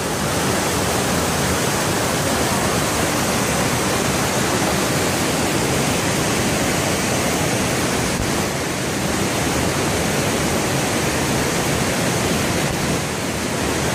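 Waterfall pouring over rock into a deep plunge pool, a steady loud rush of water.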